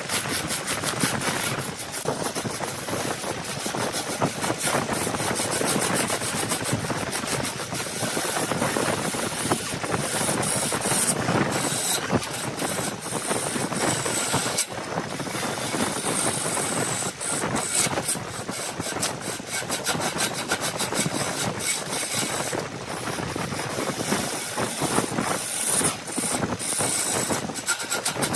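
Wood lathe running while a turning tool cuts the spinning wood: a continuous rough scraping hiss dense with rapid ticks.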